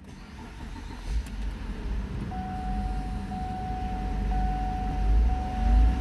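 2008 Lincoln MKZ's 3.5-litre V6 starting and settling to idle, with the revs beginning to climb near the end. The car's warning chime sounds about once a second from about two seconds in.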